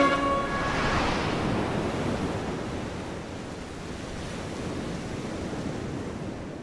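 Steady rushing wash of ocean surf, easing down over the first few seconds and then holding.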